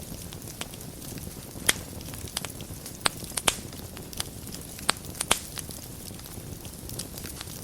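Wood fire burning in a fireplace: a steady low rumble of flames with irregular sharp crackles and pops, several louder pops in the middle of the stretch.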